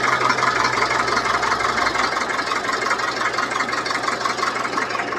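Tractor's diesel engine running steadily at close range, with a fast, even clatter.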